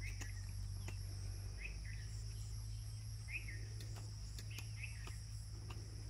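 Field insects, crickets or the like, trilling steadily in a high, even chorus over a low steady hum. A few short chirps break in now and then, about five times.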